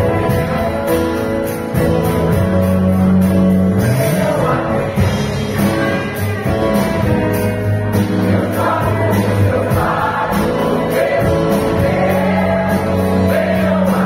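Large mixed choir singing a gospel song, with keyboard and bass accompaniment and a steady beat.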